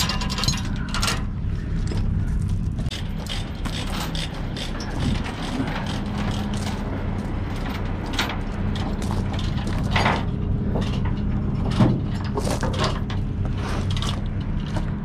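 Ratchet chain binder being worked to tighten a tie-down chain: irregular pawl clicks and chain clanks, over a steady low hum.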